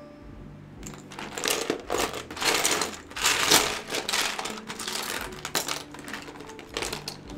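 Small plastic charms clattering against each other and a plastic storage bin as hands rummage through them: a dense, irregular run of clicks that starts about a second in and is loudest around the middle.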